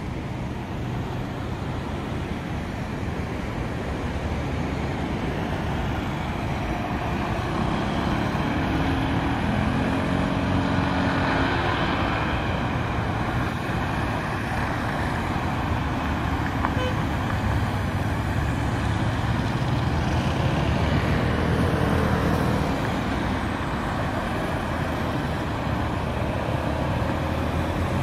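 Road traffic on a wide avenue: cars and motorbikes passing, a steady wash of engine and tyre noise that swells as vehicles go by, loudest about a third of the way in and again about three quarters through.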